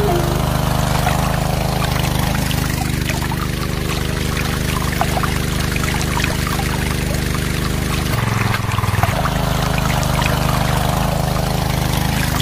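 Small motor of a DIY mini tractor running steadily as it drives a double water pump, with water pouring and splashing out. The motor's note dips briefly about eight seconds in.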